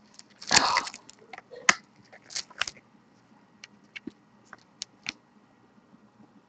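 Fingernails picking and scratching at a sticker on a cardboard card box: a string of irregular scratches, rustles and small clicks, thinning out to a few faint ticks after about three seconds.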